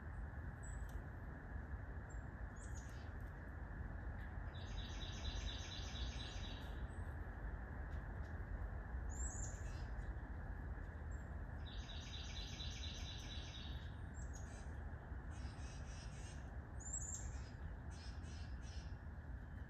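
Small woodpeckers calling: two rattling trills of rapid, evenly spaced high notes, each lasting about two seconds, with short sharp calls and quick note clusters between them. A steady low hiss runs underneath.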